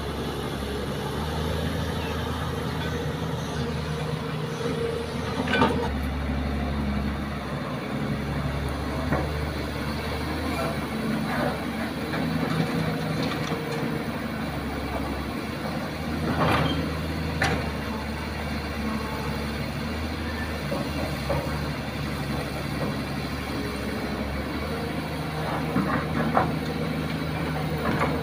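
Kobelco hydraulic excavator's diesel engine running steadily under work, with a few short thuds and knocks as buckets of soil are dumped into a dump truck's steel bed, the loudest about five seconds in and again in the middle and near the end.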